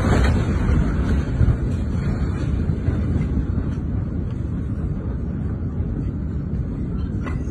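Heavy, dense low rumble of a massive explosion's aftermath, slowly dying away in the seconds after the blast.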